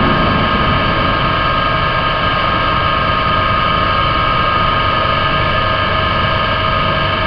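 Laboratory flume's pump machinery running with the water flowing in the channel: a steady hum with several steady tones over a rushing noise.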